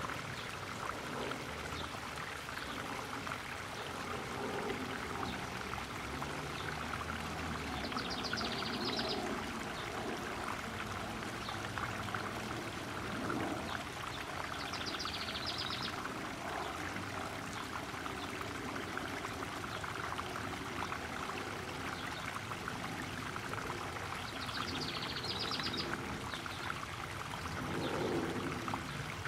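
Garden pond waterfall splashing steadily into the koi pond. A bird gives a short, high trilled call three times over the top.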